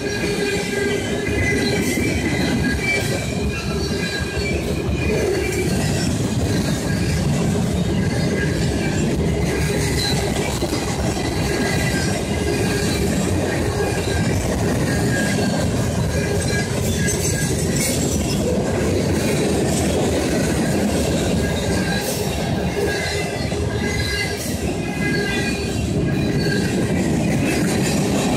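Freight cars of a CSX manifest train rolling past close by: a steady rumble of steel wheels on the rails, with high-pitched wheel squeal ringing over it throughout.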